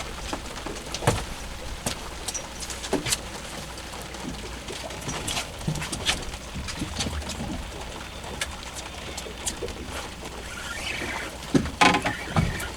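Scattered knocks and taps on a small fishing boat over a steady low rumble, with a cluster of louder knocks near the end.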